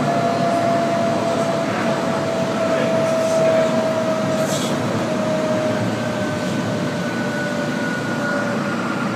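C-Train light rail car running on the track: a steady rumble with a traction-motor whine that slowly falls in pitch as the train slows for a station, and a brief high hiss about three and a half seconds in.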